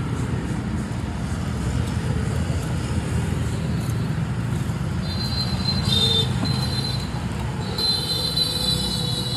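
Steady rumble of street traffic. In the second half come two high, shrill tones, the second lasting about a second and a half.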